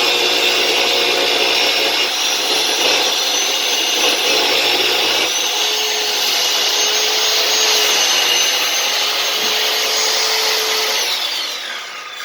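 Circular saw ripping lengthwise through a 2x8 board, its motor running steadily under load. Near the end the trigger is released and the motor whine falls in pitch as the blade spins down.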